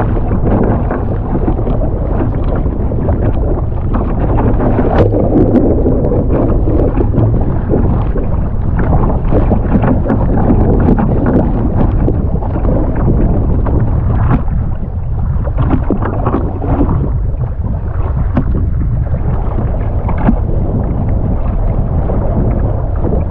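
Strong wind buffeting the microphone over rough, choppy water, with waves slapping against a kayak's hull and paddle blades splashing in a steady run of short splashes.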